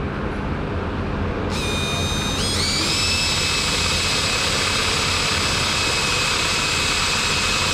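A power tool's motor starts up with a high whine about one and a half seconds in, rises in pitch, then holds a steady speed over a low hum.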